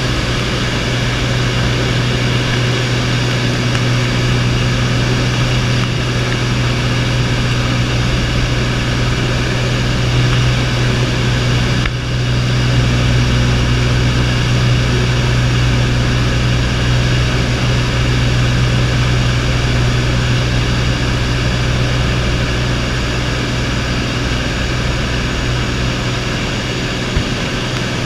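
Single-engine light aircraft's propeller engine running steadily in level flight, heard inside the cabin as a loud, even low hum with rushing air noise over it.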